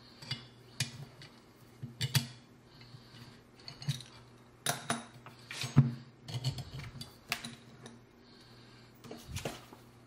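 Metal parts of a Hapstone RS guided knife sharpener being handled and fitted together: irregular clicks, clinks and knocks of the metal guide rod and bracket, the loudest about six seconds in.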